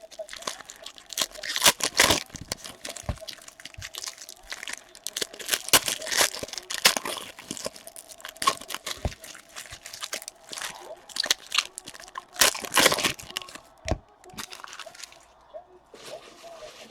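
Plastic card-pack wrappers and packaging being torn open and handled, in irregular crinkling and crackling that thins out near the end.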